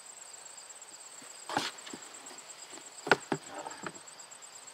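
A mesh paint-strainer bag full of perlite is pulled out of a plastic hydroponic bucket, giving a crinkly rustle about one and a half seconds in, then a few sharp crackles and clicks around three seconds in. Crickets chirr steadily and high-pitched underneath.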